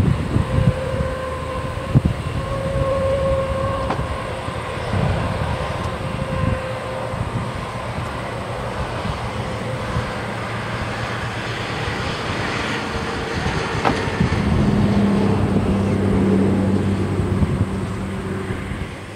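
Four Pratt & Whitney F117 turbofans of a Boeing C-17 Globemaster III running as the aircraft taxis and turns on the runway: a steady jet whine over a low rumble, swelling louder about three quarters of the way through as the tail and exhausts swing toward the listener.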